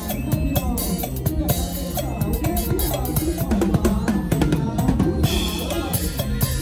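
Drum kit played in a fast lam phloen groove with a mor lam band: steady kick and snare strokes with rimshots and cymbals, over bass and the band's other instruments.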